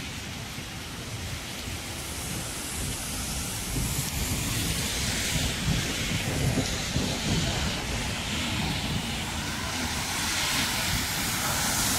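Wet-street ambience in light monsoon drizzle with traffic: a steady hiss that grows louder in the second half, over a low rumble with wind on the microphone.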